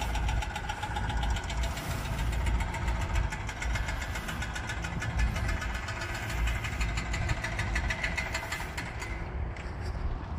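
Forklift engine running steadily on a construction site, a fast even clatter over a low rumble.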